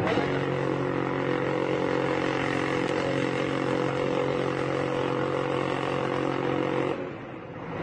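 Helicopter hovering with a searchlight on, a steady hum that holds one pitch, cutting off suddenly near the end.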